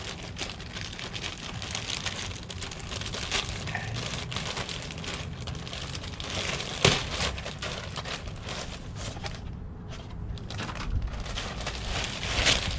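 Packaging bag crinkling and rustling as it is opened and handled to get a bivy sack out, with one sharp snap about seven seconds in.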